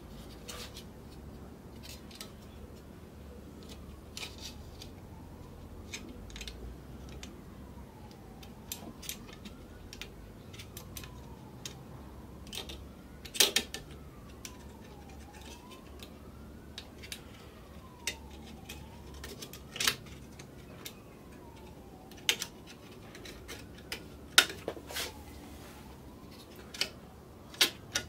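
Scattered sharp clicks and light knocks of metal and plastic copier fuser parts being handled and fitted together, the loudest about halfway through and near the end. A faint tone slides slowly up and down in the background.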